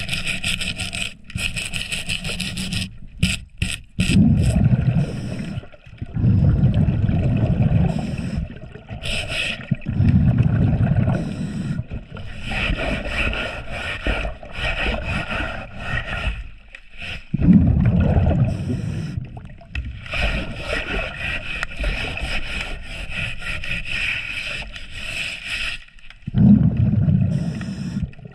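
Underwater hull scrubbing heard on a diver's camera: a hand-held scrubbing tool and gloved hand scraping growth off a boat's hull, broken every few seconds by deep, gurgling bursts of the diver's exhaled bubbles.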